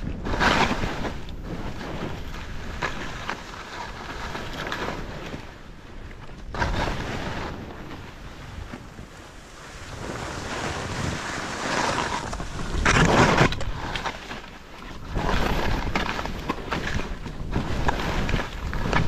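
Skis hissing and swishing through deep powder snow, rising and falling in surges with the turns, loudest a little past halfway, with wind buffeting the microphone.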